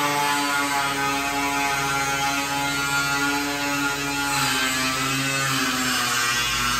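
Angle grinder cutting through a shipping container's steel wall: a steady motor whine over a hiss of grinding, its pitch shifting slightly about two-thirds of the way through.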